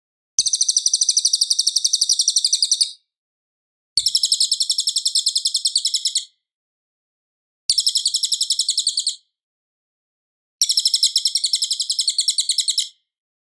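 Cililin songbird singing loud, clear phrases of rapidly repeated high notes, about eight a second. There are four phrases, each one to two and a half seconds long, with short pauses between them.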